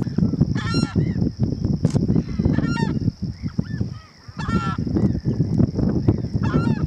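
A large waterbird giving four loud calls, evenly spaced about two seconds apart, with softer calls from other birds in between, over a steady low rumble and a constant high hiss.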